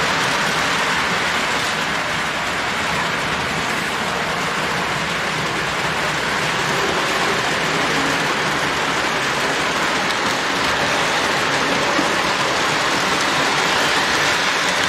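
Post-war toy model train, a Santa Fe war-bonnet diesel A-B pair pulling eleven cars, running on its track: a steady rolling noise of metal wheels on the rails.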